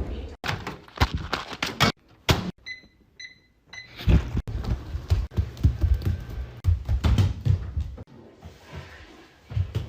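A series of thuds and knocks, with three or four short high beeps in a quiet gap about three seconds in, then more low thuds.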